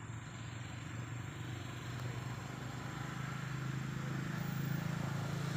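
A motor vehicle's engine running steadily, growing louder as it draws closer toward the end.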